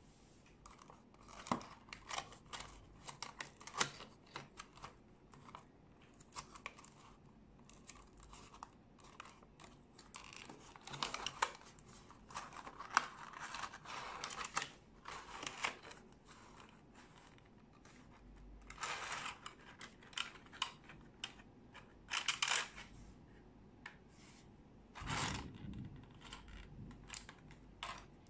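Unboxing handling: a cardboard box's flaps and a clear plastic packaging insert rustling, crinkling and clicking as they are opened and pulled apart, in irregular bursts with small taps between.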